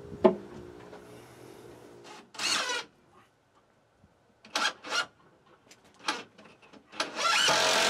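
Cordless DeWalt driver running screws into wooden shelf framing. It comes in a short burst a couple of seconds in, a few brief bursts in the middle, and a longer, louder run near the end.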